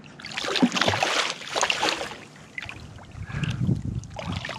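A hooked redfish splashing at the surface beside the boat as it is landed, irregular splashes for about two seconds, then softer low rumbling.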